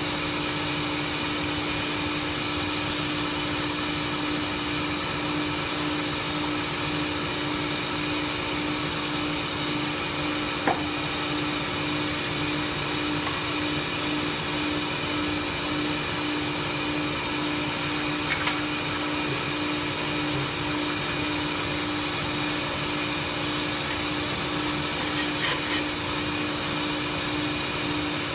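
Automatic light pole submerged welding machine running: a steady whirring hum with a constant low tone, and a few faint clicks.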